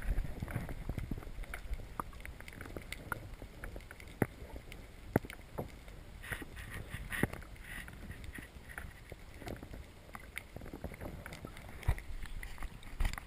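Water lapping and splashing around a kayak, with scattered sharp knocks and clicks against the hull, over a low rumble of wind on the microphone.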